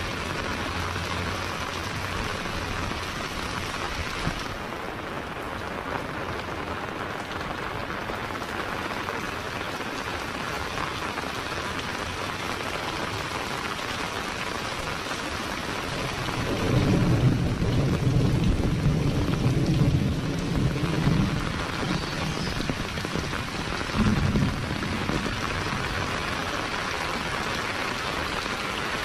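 Heavy rain falling steadily on a street and roofs. A low rumble of thunder swells for a few seconds past the halfway point, and a shorter one comes a little later.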